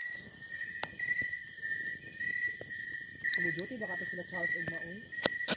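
Night insects trilling steadily: one high, continuous note with a faster, buzzing pulsed trill above it. Faint voices come in the middle, and a few sharp clicks sound now and then.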